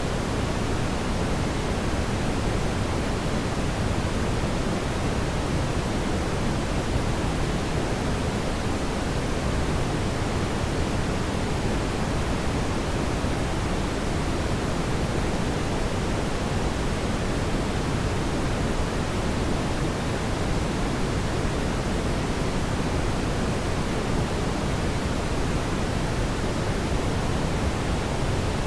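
Fire in a fireplace making a steady, even rushing noise, with no distinct crackles or pops standing out.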